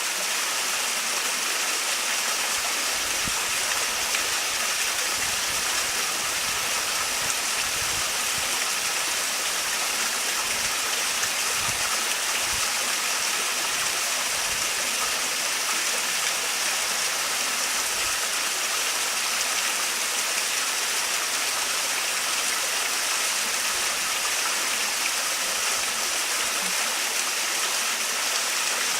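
Small waterfall splashing and rushing steadily, a constant hiss of falling water with no change.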